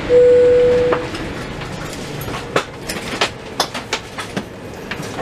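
An airliner cabin chime sounds once, a single steady tone about a second long. Scattered sharp clicks and knocks follow over the cabin's steady hum.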